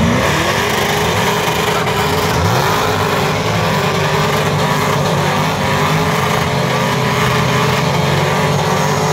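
Several cars doing burnouts at once: engines held at high revs with tyres spinning. One engine revs up further about two and a half seconds in.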